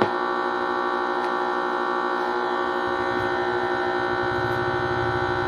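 Steady electrical hum with many overtones coming from a home theater amplifier's speaker. The hum is caused by its Bluetooth/MP3 panel having its ground not connected. A short click sounds right at the start.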